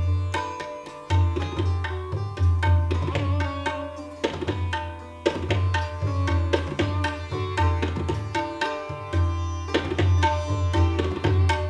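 Sitar and tabla playing Hindustani classical music together: a plucked sitar melody with ringing strings over a dense run of tabla strokes, including repeated deep bass strokes on the bayan.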